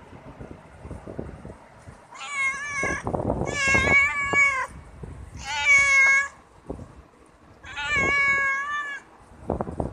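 Hungry stray cats meowing: four long meows, each about a second, starting about two seconds in, with soft knocks and rustling underneath.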